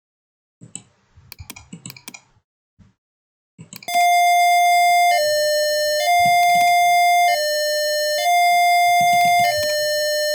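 A few clicks, then, about four seconds in, a simulated Arduino buzzer starts sounding a two-tone ambulance siren. It is a steady electronic beep that switches between a higher and a slightly lower pitch about every second, a slow hi-lo siren.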